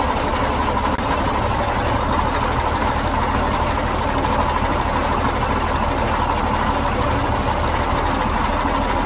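Caterpillar 14G motor grader's diesel engine idling steadily.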